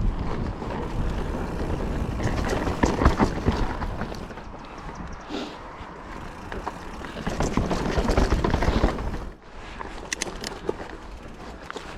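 Calibre Triple B mountain bike riding a dry, loose dirt trail: rushing wind over the camera and tyre noise over dirt and stones, with rattles and clicks from the bike. It swells in two stretches and drops suddenly about nine seconds in.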